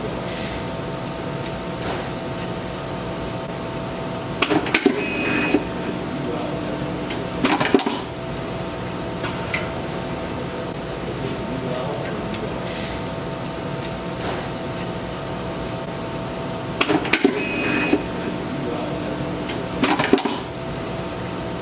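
Steady hum of the SD-110's vibratory feeder bowl, with an automatic screwdriving cycle twice, about 12 seconds apart: each a burst of mechanical clicks and clatter as a screw is fed and driven, with a brief high whine, then another clatter about three seconds later.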